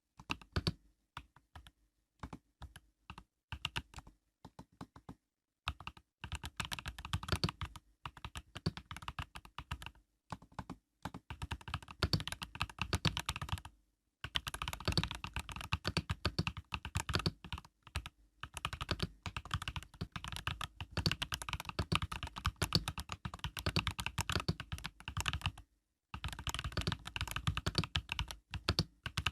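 Typing on an Epomaker EK68 mechanical keyboard with Epomaker Budgerigar tactile switches (POM stems): keystroke clicks, sparse for the first few seconds, then fast runs of typing broken by a few short pauses.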